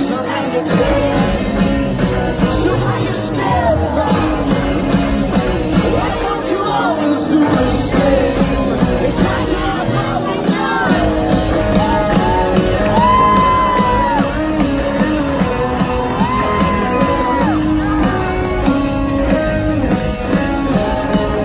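Rock band playing live with singing. Two long held notes stand out in the second half.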